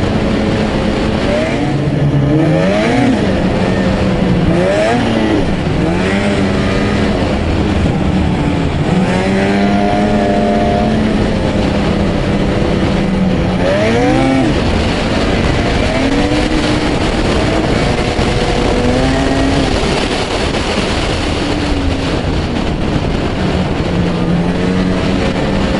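Two-stroke Ski-Doo snowmobile engine running hard under the rider, its pitch rising and falling again and again as the throttle is worked over the trail's bumps, over a steady rushing noise.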